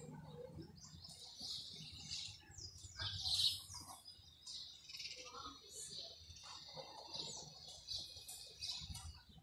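Small birds chirping, with many short high calls overlapping one another throughout. The loudest call comes about three and a half seconds in.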